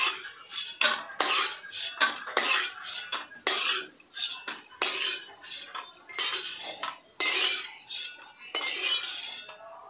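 Spoon scraping and clinking against a kadai in quick, irregular strokes as fried peanuts are scooped out of the hot oil.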